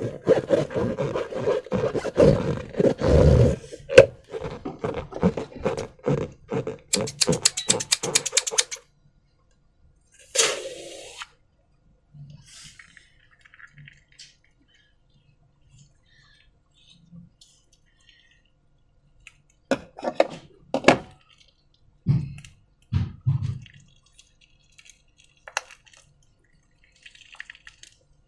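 Slime and rubber balloons being handled. For the first eight or nine seconds there is a dense run of crackling, rubbery squeaking, ending in a quick train of clicks. After that come sparse sticky, wet squelches and drips, with a few louder squishes near the end.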